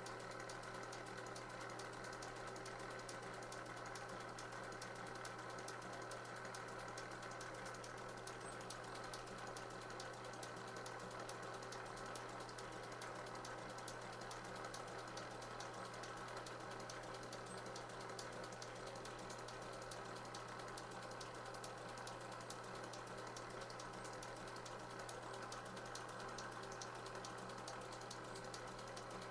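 Belt drive of a Brown & Sharpe No. 2 surface grinder running steadily, its motor and pulleys giving a constant hum with fast, even ticking over it.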